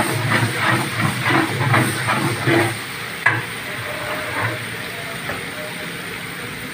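Metal ladle stirring rice in water in a large aluminium pot, about three sloshing strokes a second, which stop a little under three seconds in. A single sharp metallic knock follows as the ladle is set against the pot's rim, then a steady hiss continues.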